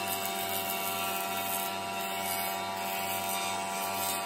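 Jointer running steadily while a glued-up slab of pallet-wood strips is fed on edge across its cutterhead, edge-jointing it. A steady machine hum with an even hiss over it.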